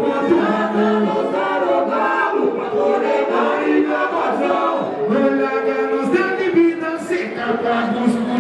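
Live vocals: a man singing into a microphone through a PA, with other voices singing along and little instrumental backing heard.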